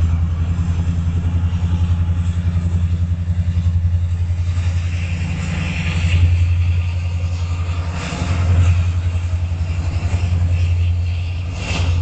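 CN freight train running past with its SD70 diesel locomotives: a steady, loud low engine drone that swells a little about halfway through and again later, with a faint high hiss above it at times.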